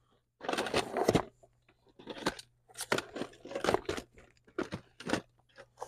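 Rummaging through stored items: irregular rustling and crinkling with sharp knocks and clicks as things are moved and handled.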